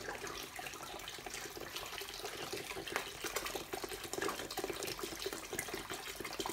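Vinegar being poured into a sink drain on top of baking soda: a steady, splashing pour of liquid.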